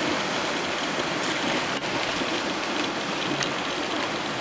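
Fast-flowing river rushing through rapids, with wildebeest splashing as they swim and plunge across, a steady rushing noise throughout.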